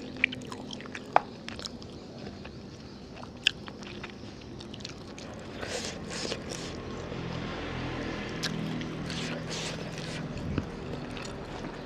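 Close-miked eating of saucy fried noodles with chicken: biting and chewing, with a few sharp clicks in the first few seconds and denser chewing from about halfway through.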